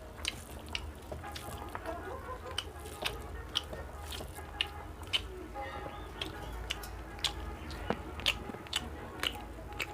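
A person eating close to the microphone: chewing, with irregular sharp crunches about once or twice a second, from crisp bhujia and raw onion eaten with rice and dal.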